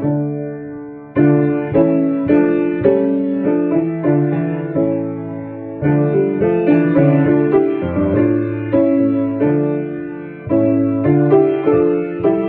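Piano playing a hymn in slow chords, each chord struck and left to ring and fade before the next.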